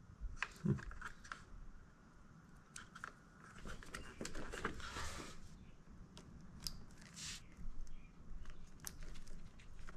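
Plastic wiring connectors and cables being handled and clipped into place on an electric scooter's frame: scattered small clicks with stretches of rustling.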